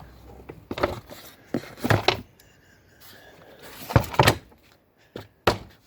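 A few loud knocks and clunks, about a second or two apart, with the loudest pair near the middle.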